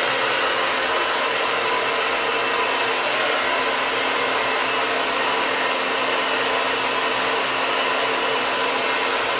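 Handheld hair dryer running steadily on its cool setting, a loud even rush of air with a faint steady hum beneath it.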